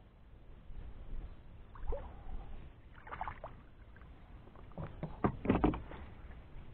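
Water splashing as a small largemouth bass thrashes at the surface and is grabbed and lifted out by hand. There are short splashes about two and three seconds in, and the loudest flurry comes a little after five seconds.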